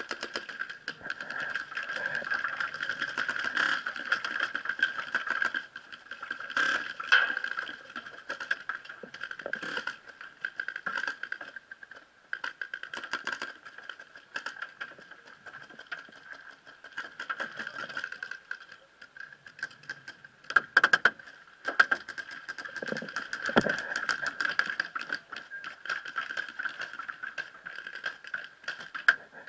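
Paintball markers firing: sharp pops and rattling clicks in irregular strings, loudest near a quarter of the way in and again about two-thirds through, over a steady high whine.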